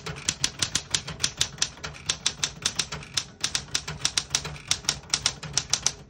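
1968 Smith-Corona Super Sterling manual portable typewriter being typed on: a fast, steady run of typebar strikes, about six keystrokes a second. The keys strike cleanly, with none skipping or sticking.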